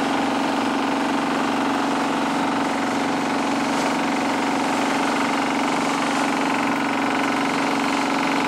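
Longtail boat engine running very loud and steady while the boat is under way, a constant low drone that does not change in pitch.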